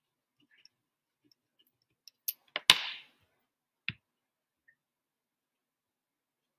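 A few sharp clicks and light taps, with the loudest click about two and a half seconds in and a duller knock about a second later, from small objects being handled on a desk.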